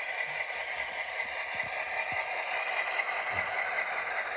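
HO scale Santa Fe diesel model locomotive running on the layout: a steady whirring hiss, with a few faint ticks.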